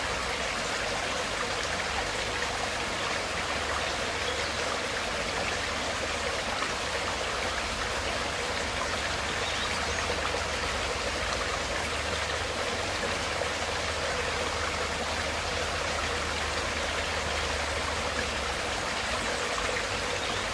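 Stream water flowing steadily, an even, unbroken hiss.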